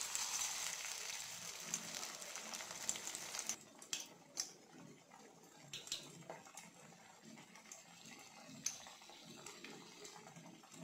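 Hot oil in a kadai sizzling as masala vada patties of chana dal dough are slipped in to deep-fry. It is a loud hiss for about the first three and a half seconds, then a quieter sizzle with scattered crackles and pops.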